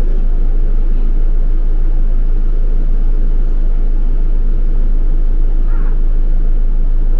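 Steady low rumble of a moving double-decker bus, its engine and road noise heard from inside the cabin.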